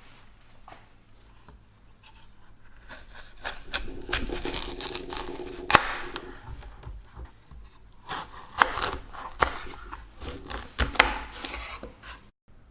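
Scraping and rustling handling sounds with a few sharp knocks, starting about three seconds in.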